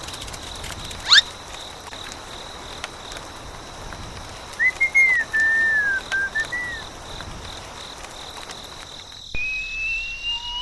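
Whistle sound effects over a faint steady high-pitched whine: a quick upward swish about a second in, a short warbling whistled phrase in the middle, and a slow rising slide-whistle glide near the end.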